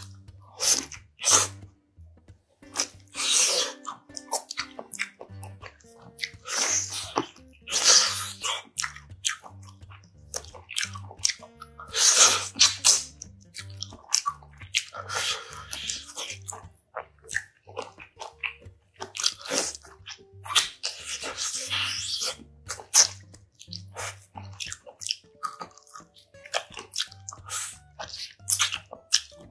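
Close-miked eating sounds from braised spicy pork backbone: chewing, sucking and biting meat off the bones in irregular loud bursts with wet clicks. Soft background music runs underneath.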